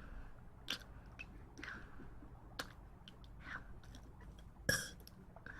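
Close-up mouth sounds of someone eating: chewing with soft, wet clicks and smacks every second or so. A louder smack comes near the end.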